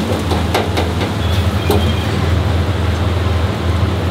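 Chicken necks frying in a commercial deep fryer, the oil bubbling and sizzling with a few sharp crackles in the first couple of seconds. Under it runs a steady, loud low machine hum.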